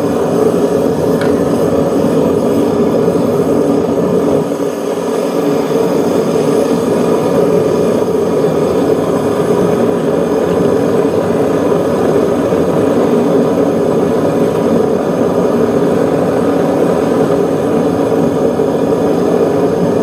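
Propane furnace burner running with a loud, steady rush of flame, its air valve open for a hotter fire. There is a faint click about a second in.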